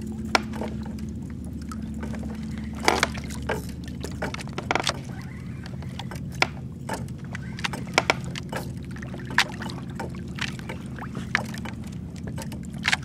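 Water sloshing and lapping against a fishing kayak's hull, with scattered sharp clicks and small splashes over a steady low hum.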